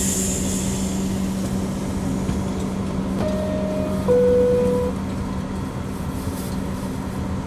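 Inside an R62A subway car: a steady low electrical hum with a brief hiss at the start, then the two-tone descending door chime about three seconds in, the signal that the doors are about to close.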